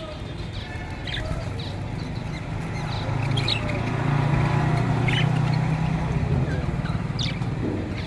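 Budgerigars in an aviary giving scattered short, high chirps, about one every second or so, over a steady low hum that grows louder in the middle.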